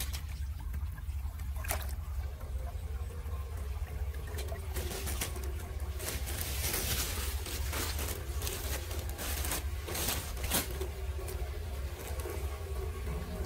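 Muddy floodwater trickling and pouring into a clogged curbside drain inlet, with several sharp splashes as gloved hands work debris out of the opening. A steady low drone runs underneath.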